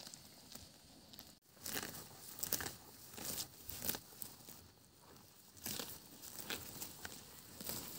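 Water buffalo grazing close by, tearing and ripping grass with its mouth: a run of irregular rough rips, roughly one every half second to a second, starting about a second and a half in.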